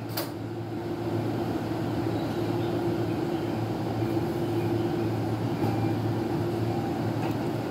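Electric commuter train standing at the platform with its doors open, giving a steady low hum.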